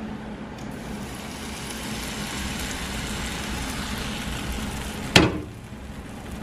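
Pancakes frying in a pan, a steady sizzle. A single sharp click comes about five seconds in, and the sizzle is fainter after it.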